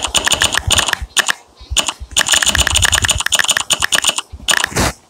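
Rapid key-press clicks from typing on a smartphone's on-screen keyboard, in quick runs with short pauses between words.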